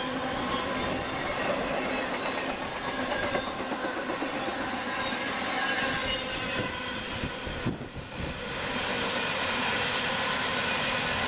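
Freight cars carrying intermodal trailers rolling past on steel wheels: a continuous rumbling clatter over the rails with several steady squealing tones from the wheels. The sound dips briefly about eight seconds in, then the rolling and squeal carry on.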